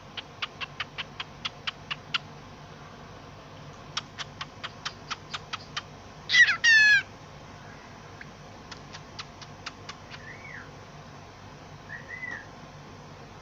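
Pet parrot making rapid trains of sharp clicks, then two loud falling calls about six seconds in, then two short soft up-and-down whistles near the end.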